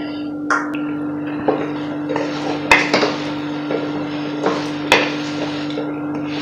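Wooden spatula stirring thick moong dal halwa in a steel kadai: irregular scrapes and knocks against the pan, a few sharper than the rest, over a steady low hum.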